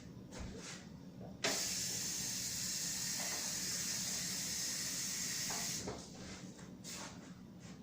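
Liquid being poured into the hot soup pot on the stove: a steady hiss that starts suddenly about a second and a half in and stops about six seconds in, with light kitchen clatter around it.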